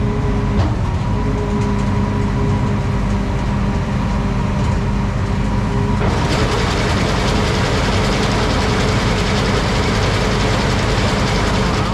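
Combine engine running with its header drive turning, steady at first; about six seconds in, a louder, dense mechanical rattle and clatter of machinery takes over. The header is being run because its center belt won't turn, which could be the motor or a slipping belt.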